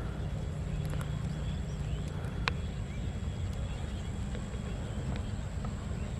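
Outdoor ambience by a pond: a steady low rumble with a thin high whine, faint chirps, and a few sharp clicks, the loudest about two and a half seconds in.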